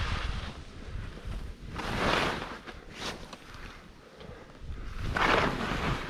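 Wind rushing over the microphone during a downhill ski run, a steady low rumble. Over it, hiss swells up about two seconds in and again near the end, as the skis turn and scrape the snow.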